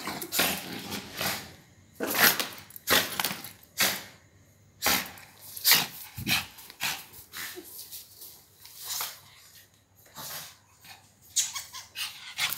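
Lhasa Apso barking in short, sharp barks at irregular intervals, about one every half second to a second, at a dog it is angry with.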